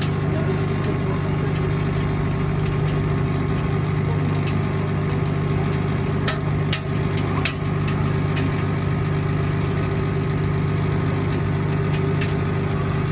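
Cotton candy machine running, its spinning head's motor giving a steady hum, with a few faint ticks over it.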